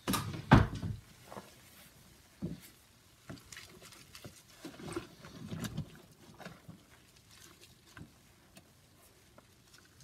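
A gloved hand sloshing and stirring through sudsy water in a stainless steel sink, with scattered small clicks and splashes. A sharp knock sounds just after the start and is the loudest sound.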